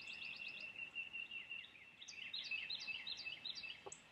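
Faint songbirds singing: several overlapping rapid trills and chirps that repeat throughout.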